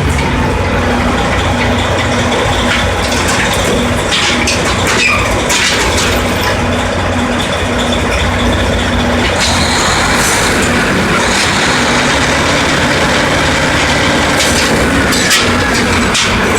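Drilling rig machinery running loud and steady with a heavy engine hum, broken by several sharp metallic knocks, mostly around four to five seconds in and again near the end.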